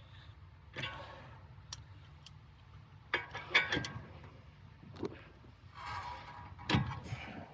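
Metal tools and parts being handled during a wheel-stud repair: a scatter of irregular clicks, clinks and knocks, busiest about three to four seconds in and with another sharp knock near the end, over a low steady hum.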